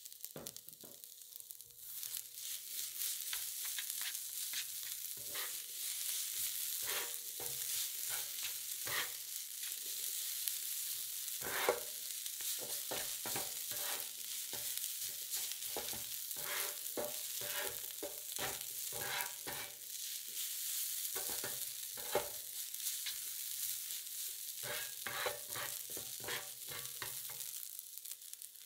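Rice and corn frying on a flat hot plate, sizzling steadily from about two seconds in, while two flat spatulas scrape, tap and turn it across the plate in many short, irregular strokes.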